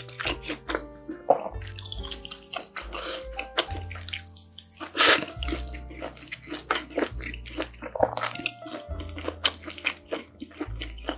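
Close-miked wet chewing and mouth smacks of a mouthful of food, many quick clicks, over soft background music with a steady bass line.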